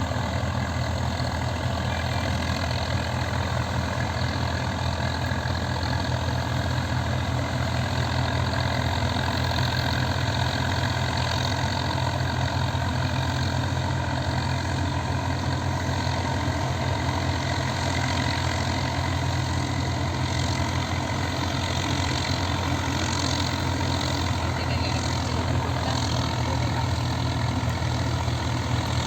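Swaraj 744 tractor's three-cylinder diesel engine running steadily, driving a mini combine harvester. It is a constant low drone with no change in speed.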